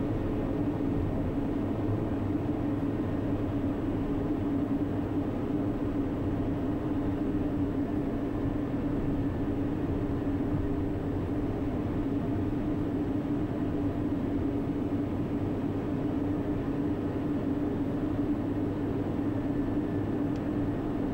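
Daher TBM 960's PT6E turboprop engine and propeller running steadily at low taxi power, heard inside the cockpit as an even drone on one held note.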